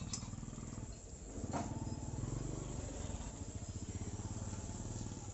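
Whiteboard duster rubbing back and forth across a whiteboard, wiping it clean: a low rubbing that grows louder about a second and a half in.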